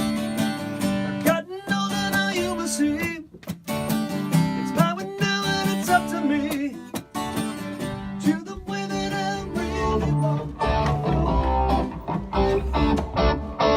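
Band music: guitar strumming and picking chords, with a bass line coming in about ten seconds in.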